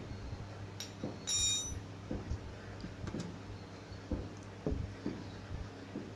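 Hand tools working the valve-adjuster lock nuts on a Yamaha FZ's cylinder head: light metallic clicks and taps every half second or so, with one brief ringing clink just over a second in, over a low steady hum.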